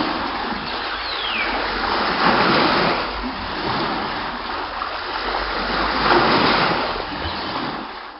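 Sea water splashing and rushing, a steady noisy wash that swells twice.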